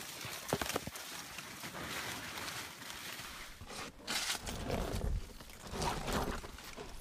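Leaves and branches rustling and brushing as someone pushes through dense shrubs on foot, with footsteps and a few sharp twig snaps about half a second in. Near the end a low rumble of handling on the camera mic joins in as a hand moves close to it.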